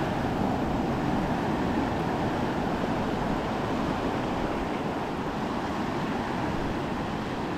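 Surf and whitewash washing over a shallow reef, with wind on the microphone: a steady rushing.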